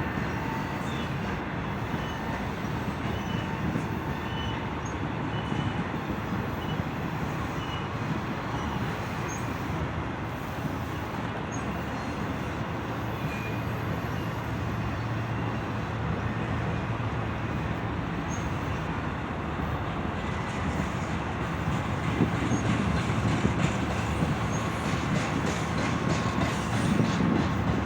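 Union Pacific train rolling by with a steady low rumble and rail noise, getting a little louder over the last few seconds.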